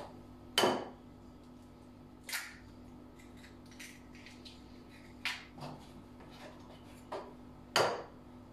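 Eggs being knocked against the rim of a mixing bowl and cracked open: several sharp knocks and clicks, the loudest about half a second in and near the end, with fainter clinks between.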